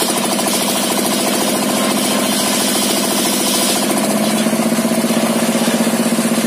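Single-cylinder dompeng diesel engine running steadily, driving a table circular saw while its blade cuts along a wooden plank. The cutting noise over the engine drops away about four seconds in, leaving the engine and the freely spinning blade running on with an even pulsing beat.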